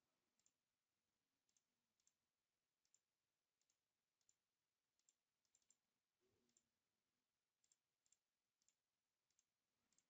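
Near silence, broken by faint, short computer mouse clicks, some single and some in quick pairs, at irregular intervals.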